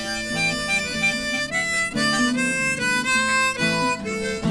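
Music: a melody of changing notes over accompaniment.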